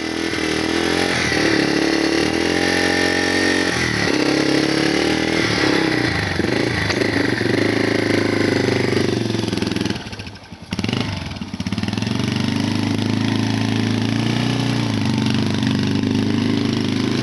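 Yamaha BW200 big-wheel dirt bike's 200cc single-cylinder engine running and being revved, its pitch rising and falling. About ten seconds in it drops off briefly, then picks back up.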